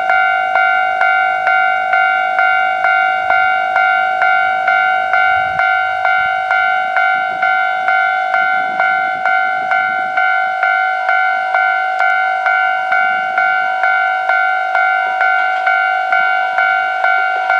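Japanese railway level crossing alarm ringing, a steady ding-ding of about two strikes a second, warning that a train is approaching.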